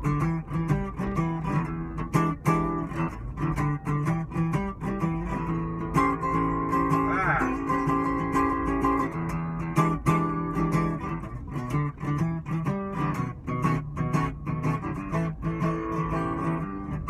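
Acoustic guitar playing a blues, with strummed chords and picked notes in a steady rhythm and no singing.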